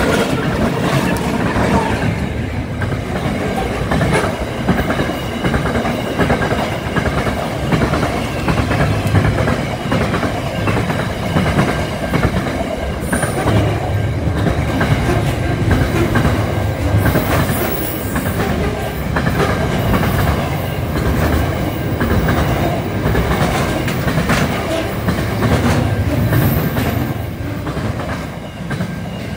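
Qube freight train passing close by: the locomotive first, then a long run of container wagons rolling past with a steady rumble and a regular clickety-clack of wheels over the rail joints. A few brief, high wheel squeals break through now and then.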